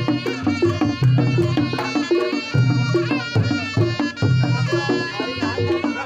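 Reog Ponorogo gamelan ensemble playing: kendang drum strokes in a fast, steady rhythm under a wavering reed-like melody line. A low, booming gong-like note swells again every second and a half to two seconds.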